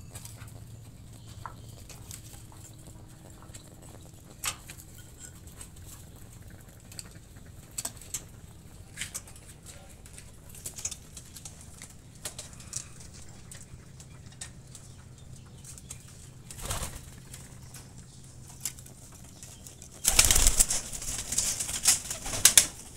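Racing pigeons in a loft: scattered light clicks and scuffs, a brief flutter about seventeen seconds in, then a loud burst of wing flapping lasting about two to three seconds near the end.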